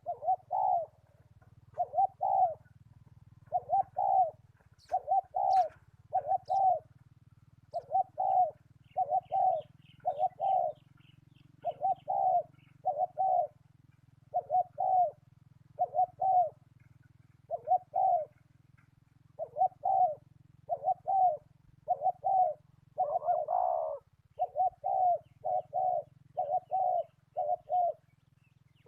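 Zebra doves cooing: short, rolling coo notes in quick pairs and clusters, repeating almost without pause and overlapping as several birds call. A few faint higher chirps come in around the middle.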